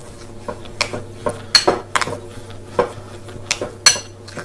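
Metal utensil clinking and scraping against a ceramic bowl as mashed potatoes are stirred, about seven or eight sharp irregular clinks.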